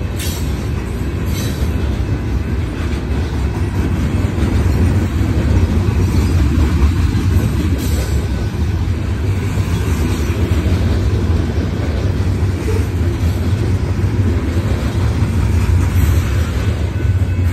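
Freight train's open-top cars rolling past at speed: a steady low rumble of steel wheels on rail, with a few sharp wheel clacks.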